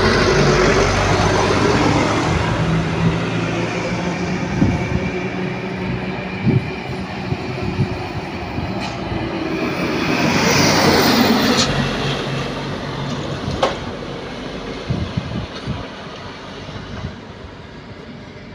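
Trucks driving past close by: the engine and tyre noise swells as one goes by at the start and again as an Isuzu light truck passes about ten seconds in, with a few sharp clanks, then the traffic noise fades.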